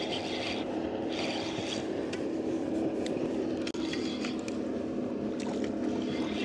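A boat's motor hums steadily, with light irregular scrapes, clicks and water sounds on top while a hooked crappie is brought in.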